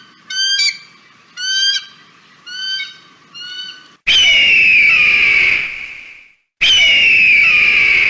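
Eagle calls: five short, high, slightly falling calls, then about four seconds in a long harsh scream sliding down in pitch, and a second scream like it near the end.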